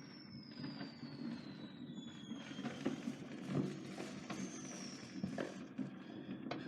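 Fireworks: several whistles falling in pitch over a run of pops and bangs, with a steady low rumble underneath. A quick cluster of sharp reports comes near the end.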